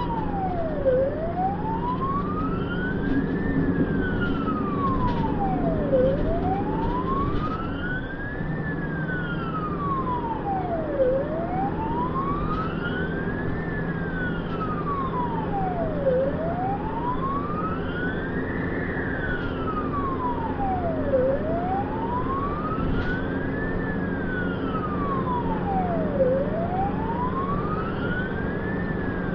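Ambulance siren in slow wail mode, heard from inside the cab: one tone climbing for about two and a half seconds and falling for as long, over and over, above the steady drone of the ambulance's engine and tyres.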